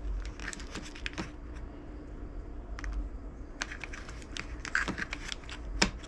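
Fingers rummaging through a plastic O-ring assortment box, with light irregular clicks and rattles of plastic compartments and rubber O-rings being picked over.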